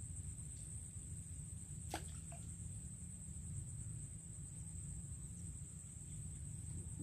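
Faint outdoor background: a steady high-pitched whine over a low rumble, with one sharp click about two seconds in.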